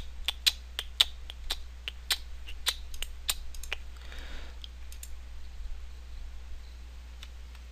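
Rapid, irregular clicking at a computer: a dozen or more sharp clicks of keys and mouse buttons over the first three and a half seconds, then they stop and only a faint, steady low hum remains.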